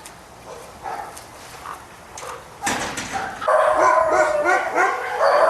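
Dogs whining and yelping. The first half is quiet; after a short noisy burst about halfway in, a held whine and a run of quick, repeated yelps start and carry on loudly.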